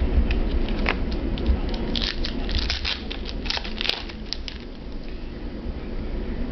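Football trading cards being flipped through by hand, card sliding and snapping against card in a run of quick dry clicks. They are densest about two to four seconds in, then die away.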